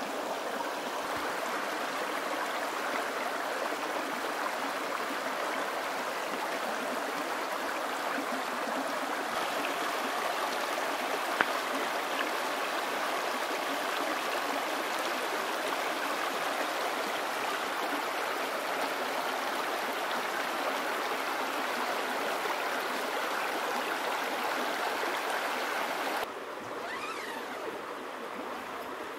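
Mountain creek flowing: a steady rushing of water that drops abruptly to a quieter rush near the end.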